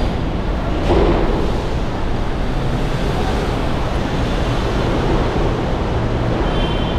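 Steady rumble and hiss of road traffic on the concrete flyover overhead, with a brief louder swell about a second in.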